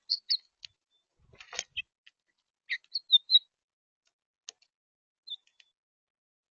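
Small birds at a seed feeder giving short, high chirps and clicks in quick clusters, with a brief rustle about a second and a half in.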